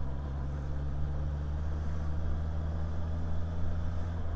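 Motorcycle engine running at a steady cruise with a steady low hum, under road and wind noise, heard from inside the rider's helmet.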